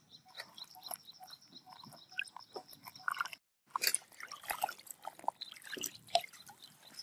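Water sloshing and splashing in a metal bowl as hands squeeze and knead soaked tofu skin. Before it come soft clicks with a faint, evenly repeating high ticking, and the sound cuts out briefly just before the splashing starts.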